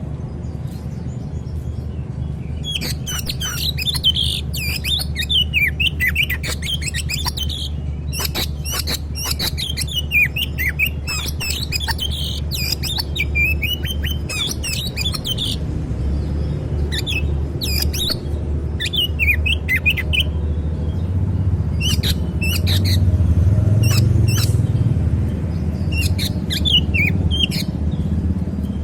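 Oriental magpie-robin (kacer) in agitated song: a long run of rapid, varied whistles and chirps from about 3 to 15 seconds in, then shorter separate phrases. A steady low rumble runs underneath.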